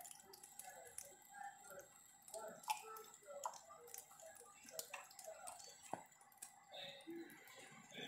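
Quiet, scattered clicks and drips as a wet cockatiel bathes and shakes its feathers on a wet benchtop.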